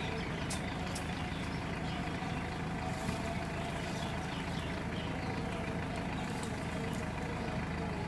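Steady low mechanical rumble, like an engine running nearby, with a few faint clicks.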